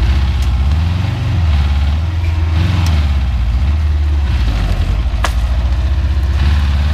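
LuAZ-969's air-cooled V4 engine running at idle, blipped up in pitch twice, briefly, in the first three seconds. A single sharp click comes about five seconds in.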